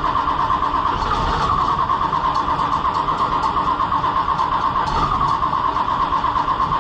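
Cold diesel tractor engine being cranked over by its electric starter, chugging at a steady, even rhythm without catching.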